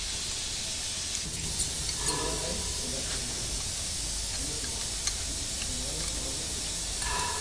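A steady hiss, with faint voices talking in the background about two seconds in and again near the end, and a few light clicks.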